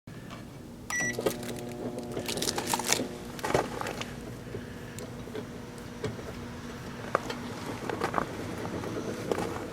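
Microwave oven being started: a short beep about a second in, then the oven running with a steady hum, with scattered clicks on top.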